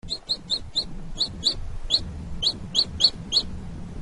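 Baby chick peeping: a run of short, high, rising peeps, about three a second, over a low background hum.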